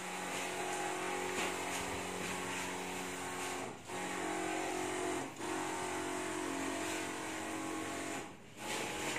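Backpack disinfectant sprayer running steadily, a constant motor hum with the hiss of the spray, with short breaks about four and five seconds in and another near the end.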